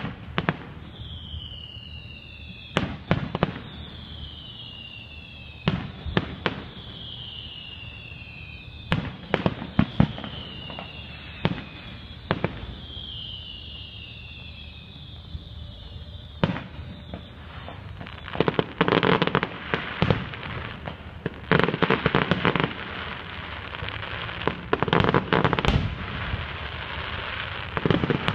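Aerial firework shells bursting with sharp bangs every second or few, and several high whistles falling in pitch between them in the first half. About two-thirds of the way in, the bursts come thick and fast over constant crackling.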